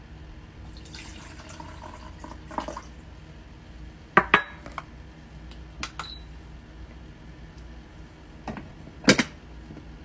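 Water poured from a small glass bowl into a humidifier's tank, with a soft trickle for about two seconds. Then come sharp knocks and clinks of hard glass and plastic parts being set down and handled: a close pair about four seconds in, two more around six seconds, and the loudest pair near the end, as the humidifier's lid is fitted.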